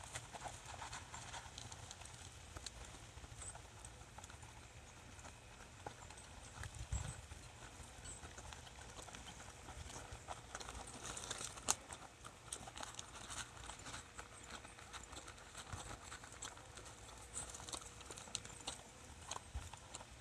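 Faint clip-clop of horses' hooves, an uneven scatter of light clicks.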